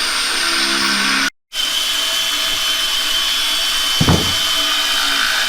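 Power drill running at speed, drilling a bolt hole through the plastic baler-liner strip and its bracket; it stops for a moment about a second and a half in, then starts again and runs on. There is a short low thump about four seconds in.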